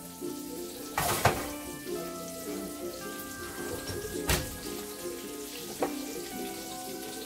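Background music over a few sharp clanks from a metal roasting pan being handled, with the loudest knock about four seconds in as the oven door is shut.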